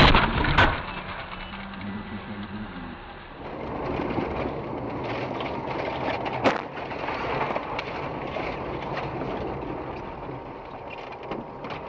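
Vehicle and road noise from dashcam footage, opening with a loud impact and ending in a steady rumble and hiss with a sharp knock about six and a half seconds in.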